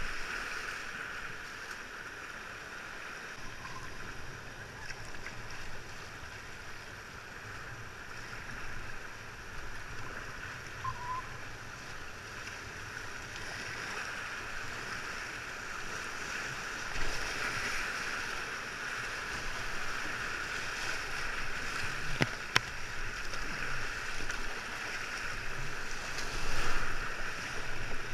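Whitewater rapids of the Lehigh River at 1700 cfs, rushing steadily around the kayak the recording is made from. A sharp click sounds once about 22 seconds in.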